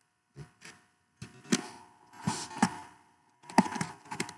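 Computer keyboard keys clicking as code is typed, in several short bursts of keystrokes with pauses between them.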